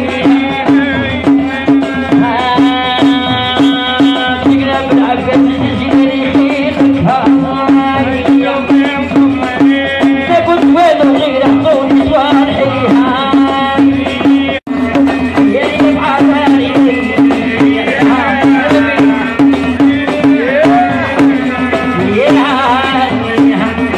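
A woman singing through a microphone over a steady beat on a hand-struck frame drum, with a constant low tone underneath. The sound cuts out for an instant about halfway through.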